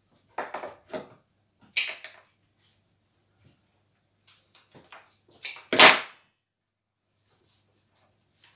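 Short rustles and knocks from red-berried flower stems being handled, stripped of their leaves and pushed into a potted arrangement. The loudest comes about six seconds in.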